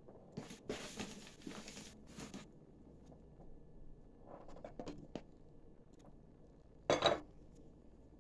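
Kitchen utensils being handled: about two seconds of rustling and scraping, a few light clicks, and one sharp knock about seven seconds in, as a mesh sieve of flour is set over the batter bowl.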